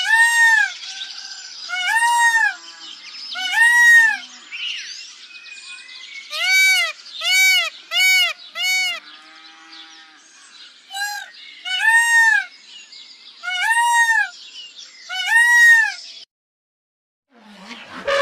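An animal calling over and over in short, high, arching cries, each about half a second long and rising then falling in pitch, in a quicker run near the middle. The calls stop abruptly near the end, and a different sound starts just after.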